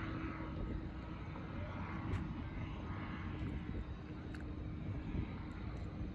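Paramotor engine and propeller running steadily, with wind rumbling on the microphone.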